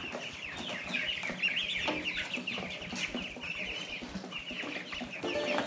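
A crowded pen of ducklings peeping together: a dense chorus of short, high, falling peeps. Music comes in near the end.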